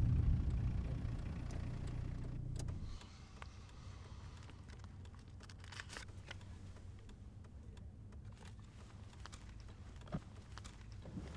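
Car pulling up, its low engine and road rumble dying away over the first three seconds, then a quiet steady engine hum as it idles, with faint clicks and rustles and a short knock near the end.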